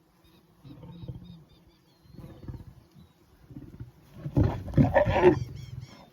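Male lion growling low over a wildebeest kill, breaking into a loud snarl about four seconds in: a dominance threat to warn the other lions off the carcass.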